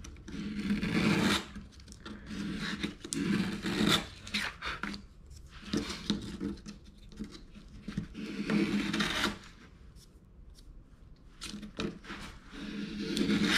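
A small piece of light wood hand-sanded on a flat orbital sanding disc: scratchy back-and-forth rubbing strokes in several runs, with short pauses between them.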